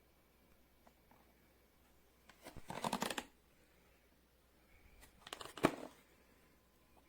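Two short bursts of rustling and clicking handling noise, the second ending in a sharp click.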